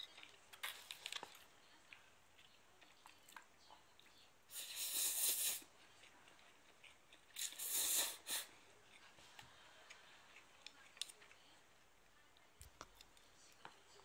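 Two loud slurps of instant yakisoba noodles, each about a second long and a couple of seconds apart, mixed with light clicks of wooden chopsticks against a foam tray.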